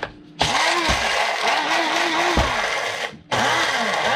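Small electric blender grinding corn flakes into powder, its motor pitch rising and falling as the flakes churn. It starts about half a second in, stops for a moment just after three seconds, and starts again.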